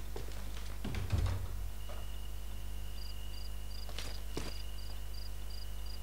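Audio-drama night-time sound effects: a dull thump about a second in, then crickets chirping, a steady high trill with a short chirp about three times a second joining it, and a couple of sharp clicks like footsteps. A steady low hum runs underneath.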